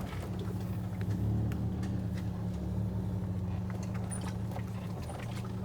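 Car engine running steadily at low revs while driving over a rough trail, with scattered light knocks and rattles.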